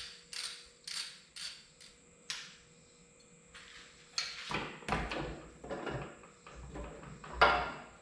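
Ratchet wrench backing out a freed manifold bolt, a steady run of ratchet strokes about two a second, followed by metal parts being shifted and lifted, with a loud clunk near the end.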